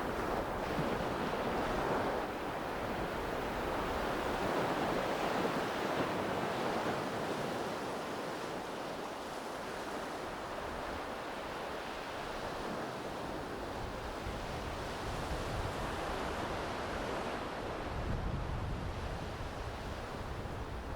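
Small waves washing up on a sandy beach, a steady surf hiss that swells and eases, with a low rumble of wind on the microphone coming in near the end.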